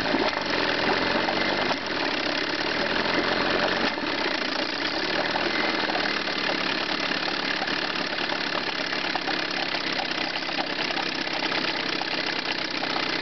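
Chrysler 9.9 hp two-stroke outboard motor idling while its low-speed fuel mixture screw is backed out counterclockwise. The engine has a lean misfire, which smooths out as the mixture is made richer.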